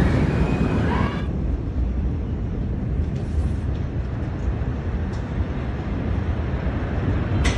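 Low, steady rumble in a phone recording of the dust cloud rising after the Beirut port explosion, with no separate bang or impact. A wavering higher sound in the first second stops abruptly about a second in.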